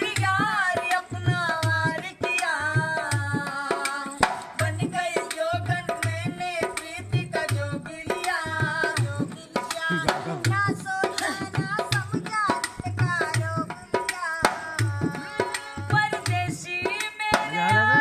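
Indian folk-style music: a hand drum keeps a steady beat of about two low strokes a second under a melody with sliding, ornamented notes.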